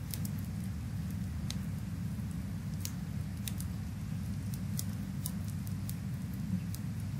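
Recorded rain-and-fireplace ambience: a steady, even rush of rain with scattered sharp crackles from a wood fire.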